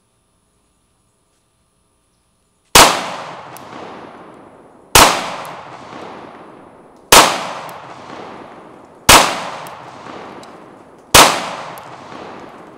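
Five 9mm pistol shots from an FN 509 Tactical, fired slowly about two seconds apart and starting about three seconds in, each sharp crack followed by a long fading echo.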